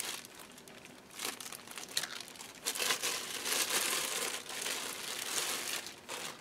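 Clear plastic bag crinkling as it is handled, with a few light crinkles at first, then louder, continuous crinkling from about halfway in.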